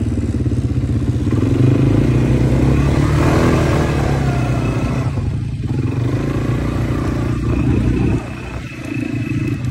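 Quad bike (ATV) engines running as the quads are ridden over sand, quieter for a moment about eight seconds in.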